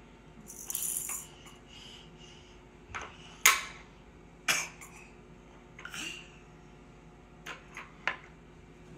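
Wooden toy pieces of a ball-drop tower and its parts clacking and knocking together as a toddler handles them: a string of separate sharp clacks, the loudest about three and a half seconds in, after a brief rustle about a second in.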